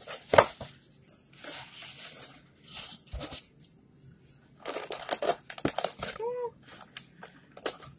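Paper wrapping rustling and crinkling in short bursts as it is handled, with a sharper crackle about half a second in.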